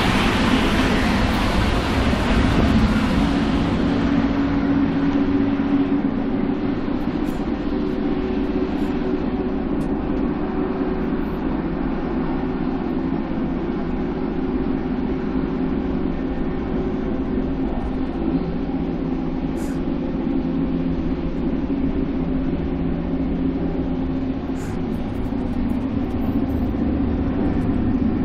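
Steady running noise of a moving passenger train heard inside the coach: an even rumble with a faint steady hum. A brighter rushing hiss fades away over the first few seconds.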